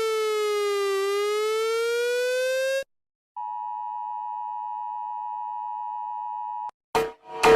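Emergency alert tones: an electronic siren tone that glides down and then back up, cuts off, and after a short gap gives way to a steady electronic attention tone lasting about three seconds. Music with beats starts near the end.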